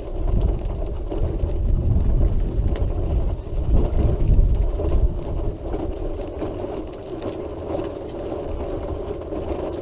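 Wheelchair moving along a path: a steady hum, with a heavy low rumble through the first five seconds that then eases.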